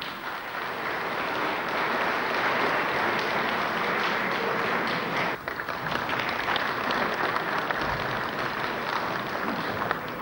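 Large seated audience applauding steadily, a dense patter of many hands clapping, with a brief dip about five seconds in.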